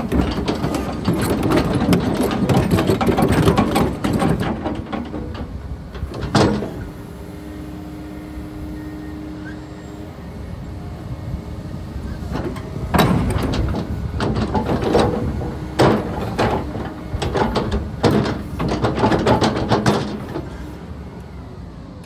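Volvo ECR compact excavator running and moving on its tracks, with bursts of clanking and knocking from the undercarriage and a steadier stretch of engine and hydraulic hum in the middle. The tracks are bound up and stiff, which the dealer puts down to the machine sitting and rusting up.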